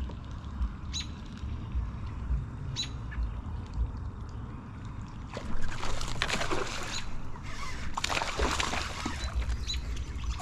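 A bird chirps a few times over calm water. About five seconds in, a smallmouth bass strikes at a Whopper Plopper topwater lure and leaps, making two long bouts of splashing.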